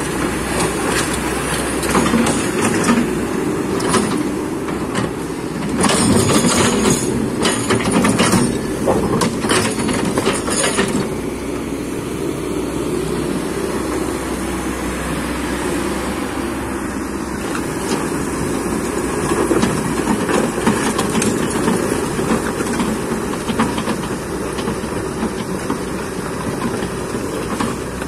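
Kobelco excavator's diesel engine running steadily while its steel crawler tracks are run to clean them, with a stretch of rapid clanking and rattling from about six to eleven seconds in.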